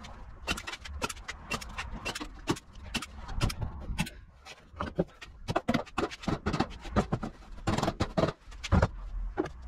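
Galvanized wire mesh being bent and pressed down by hand over the edge of a wooden frame, giving a run of irregular sharp clicks and rattles.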